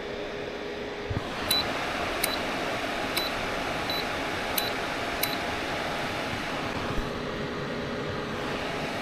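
Small portable fan heater switched on: a soft knock, then its fan starts about a second in as a steady rush of air. Six short high beeps from the heater's controls follow over the next few seconds as the settings are stepped.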